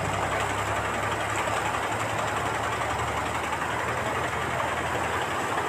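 Fast floodwater rushing and churning across a street: a steady, even rushing noise, with a low steady hum underneath.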